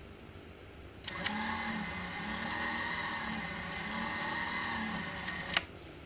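Casdon Hoover Electron 1100 toy washing machine's small battery-powered motor clicking on about a second in, whining steadily as it turns the drum of wet whites, its pitch wavering up and down about once a second, then clicking off about four and a half seconds later. The owner thinks the motor could do with replacing, as the drum struggles to turn.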